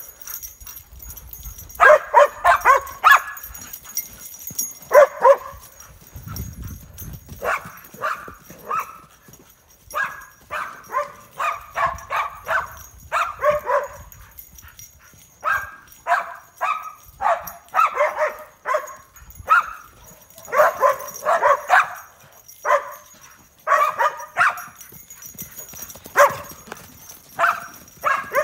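Dogs barking at a horse in quick, repeated bursts of several barks at a time, with short pauses between bursts.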